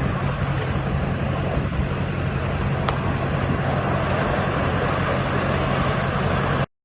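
A boat's engine running steadily under wind buffeting the microphone and rushing water, cutting off abruptly near the end.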